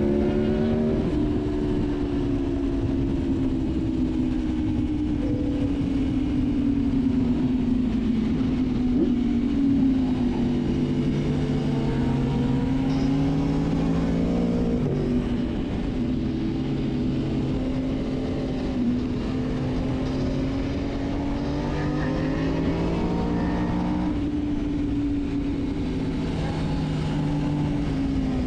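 Sportbike engine running at riding speed, heard from on board, its pitch slowly rising and falling with the throttle over a steady rush of wind noise. A lower engine note comes and goes through the middle of the stretch.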